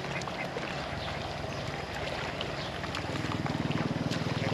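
A small engine running with a steady low drone, getting louder about three seconds in.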